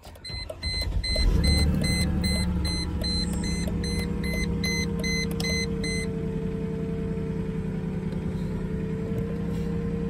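A 2001 Mercedes E320's V6 is started and settles into a steady idle, catching about a second in. The coolant gauge sits at the cold end, so this is a cold start. A dashboard warning chime beeps rapidly, about three times a second, for the first six seconds.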